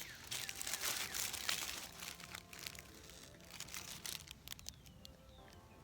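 A Pop-Tart wrapper crinkling as it is handled and opened, loudest in the first two seconds and then fading to light rustles. A songbird chirps faintly near the end.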